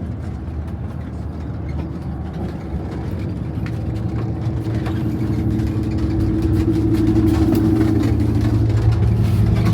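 Long-distance coach engine and road noise heard inside the bus cabin: a steady low drone with a hum that grows louder through the second half.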